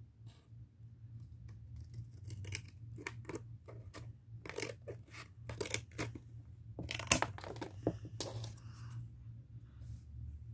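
Scissors cutting through cardboard: a run of irregular crunching snips that starts a couple of seconds in, the loudest about seven seconds in.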